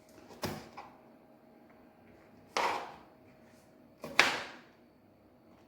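Three sharp knocks, about two seconds apart and the last the loudest, each fading quickly: a knife striking a cutting board as the tops are cut off chilies.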